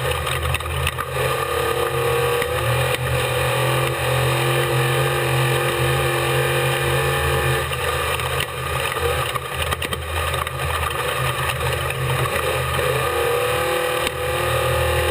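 Off-road race vehicle's engine running hard at speed, its pitch rising and falling with the throttle, with scattered knocks and rattles from the rough ground.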